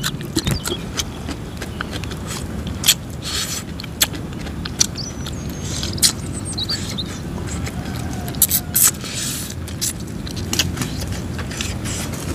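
Close-miked eating: chewing and mouth smacking with irregular sharp clicks and crunches, over a steady low background rumble.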